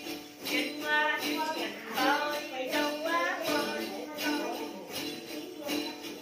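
Then ritual music: a cluster of small jingle bells (xóc nhạc) shaken in a steady beat about twice a second over the plucked đàn tính lute. A voice chants from about a second in, fading after about three and a half seconds.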